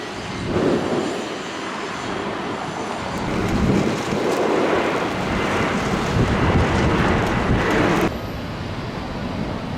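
A loud, noisy rumble of passing vehicles that swells in the middle and cuts off abruptly about eight seconds in.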